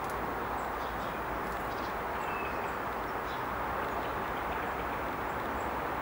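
Steady outdoor background rush, even and unchanging, with a few faint, short bird chirps high above it.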